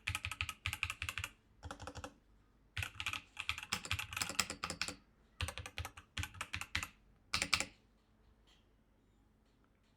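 Typing on a typewriter-style mechanical keyboard built of steel plates, with a hard, metallic clack from the plates: fast runs of keystrokes broken by brief pauses. The typing ends with a few loud strokes about three-quarters of the way through, leaving only a few faint ticks.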